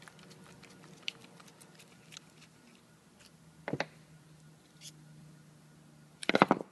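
Small handling clicks and scrapes of a screwdriver working a screw on a spray gun's plastic air cap as the air knife is taken off. There is a sharp knock a little past halfway and a quick run of louder clicks near the end.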